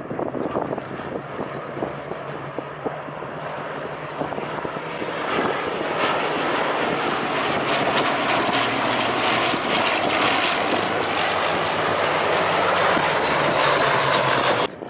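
Propeller-driven aircraft engine flying over, growing louder about five seconds in and holding steady, then cut off abruptly near the end.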